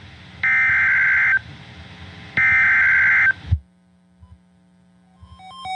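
Emergency Alert System SAME data bursts from a NOAA Weather Radio broadcast: two harsh, roughly one-second bursts of rapidly switching high tones about a second apart, followed by a click and a faint low hum.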